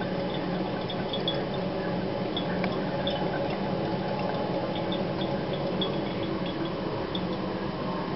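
Salt water draining through a coffee filter in a funnel into a glass jar: a steady trickle with small, irregular drips.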